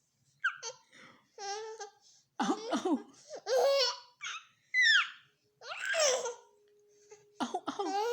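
Baby laughing in a series of short bursts, with a high falling squeal about five seconds in.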